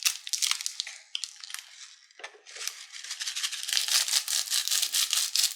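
Small plastic craft beads rattling in their container as they are shaken out into the slime: scattered clicks at first, then a dense, steady rattle from about two seconds in.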